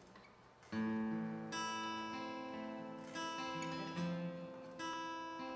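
Acoustic guitar playing a slow intro of ringing chords. It comes in just under a second in, with a new chord struck about once a second.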